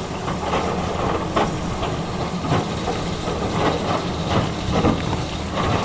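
Excavator's diesel engine running steadily, with irregular metallic clanks and scrapes from the machine at work about every half second.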